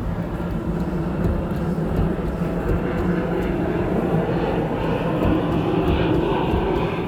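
Chevy Express van running and being driven, with a steady rumble of engine and road noise.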